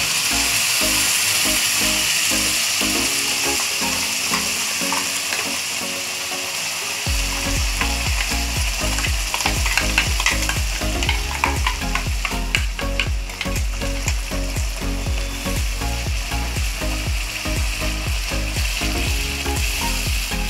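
Ground masala paste sizzling as it fries in hot oil in a kadhai. From about seven seconds in, a wooden spatula stirs and scrapes it round the pan, adding rapid clicks and scrapes over the sizzle.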